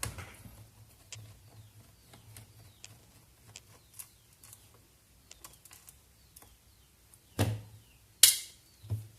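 Small Phillips screwdriver backing a screw out of a laptop's plastic bottom case: faint scattered ticks and clicks, then a few sharper clicks and knocks near the end, the loudest about eight seconds in.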